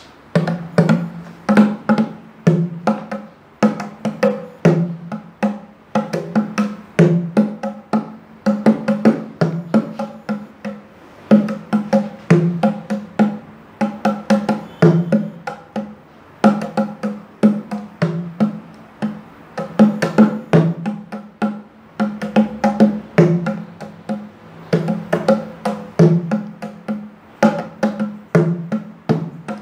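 A pair of wooden bongo drums played with bare hands: a simple beginner's rhythm of several hand strikes a second on the two heads, repeating in a steady pattern.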